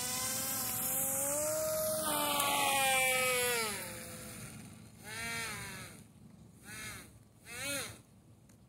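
Electric motor of a scratch-built foam-board RC plane throttled up with a rising whine and a rough, rattly hiss. It holds for about three seconds, then winds down, followed by three short blips, each a quick rising and falling whine. The noise comes from the motor not being firmly anchored in its mount.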